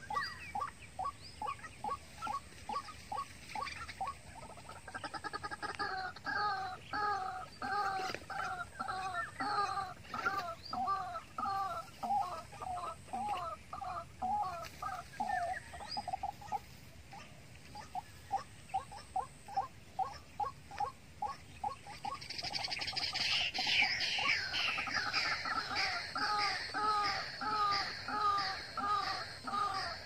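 White-breasted waterhens calling: a long run of harsh, evenly repeated notes, about two a second. A second, higher and louder series of calls joins in about two-thirds of the way through.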